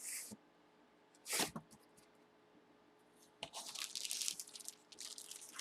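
Plastic packaging crinkling and tearing in short crackly bursts as a jersey card is pulled from a hockey memorabilia box, with a busier spell of crinkling over the last two seconds.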